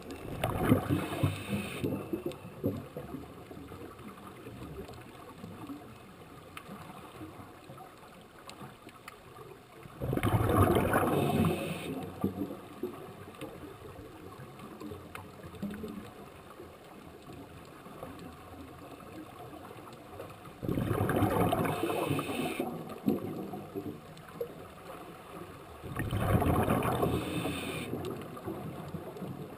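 Scuba regulator exhaust bubbles: a diver breathing out underwater, heard as four bubbling rushes of about two seconds each, with a quieter hiss between breaths.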